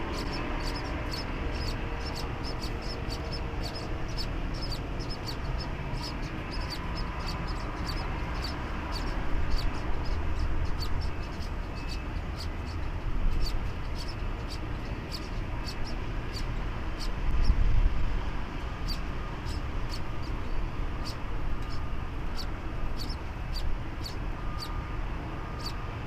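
Nestling birds peeping, short high thin peeps repeated steadily about three a second, over a low rumble that swells briefly about seventeen seconds in.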